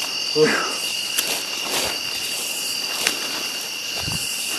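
Steady chorus of night insects, crickets among them, holding two high steady tones, with footsteps rustling through brush and a couple of sharp clicks.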